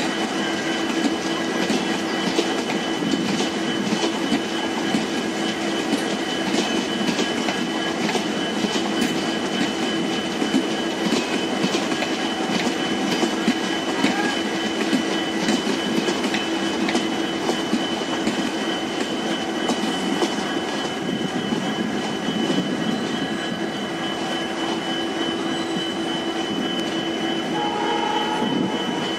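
A long rake of passenger coaches runs past close by, with continuous wheel rumble, irregular clicks as the wheels cross the rail joints, and a steady whine running through it.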